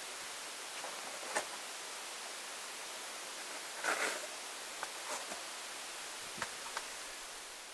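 Steady hiss of background noise with a few faint clicks and rustles. The loudest, a brief papery rustle about four seconds in, comes as a hand brushes over a cardboard target.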